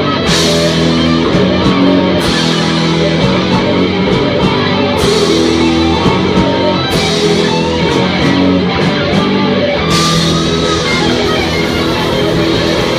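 Live heavy metal band playing: distorted electric guitars hold heavy sustained chords over bass and drums. A crash cymbal hits every two to three seconds.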